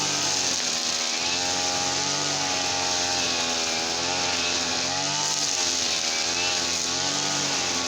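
Small petrol engine running steadily, its speed wavering gently up and down every second or two.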